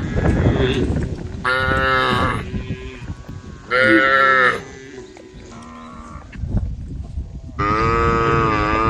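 Cattle mooing. There are three loud calls, the last one long and running to the end, with fainter moos between them and low noise near the start.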